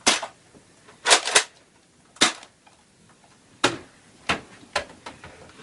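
Nerf blasters firing: about seven sharp pops at irregular intervals, two of them in quick succession about a second in.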